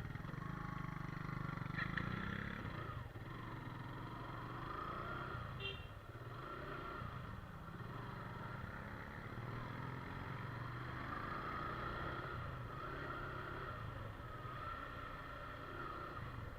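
Motorcycle engine running steadily while riding, its pitch wavering slowly up and down.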